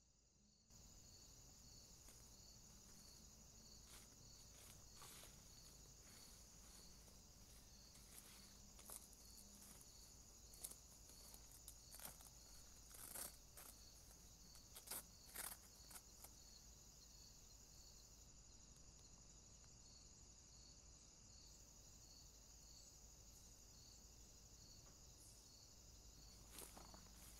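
Faint night insect chorus: a steady high buzz with a regular chirp repeating under a second apart, and a few faint clicks or rustles midway.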